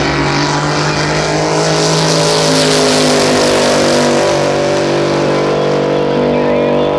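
Race boat's engine running hard at steady high revs, a loud, even engine note that holds its pitch throughout.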